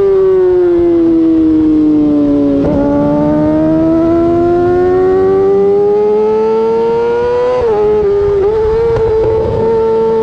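2008 Yamaha R6 inline-four engine with an Akrapovic exhaust, under way: the revs ease down, then after a brief jolt climb steadily in pitch for about five seconds, dip at a gear change near the end and hold steady.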